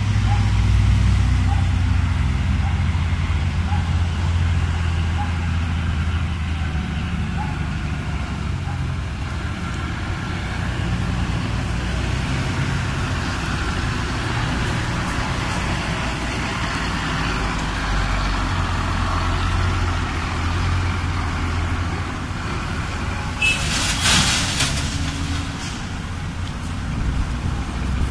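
A ten-wheel dump truck's diesel engine runs with a steady low rumble as the truck manoeuvres. About 24 seconds in there is a loud, roughly one-second hiss of the air brakes.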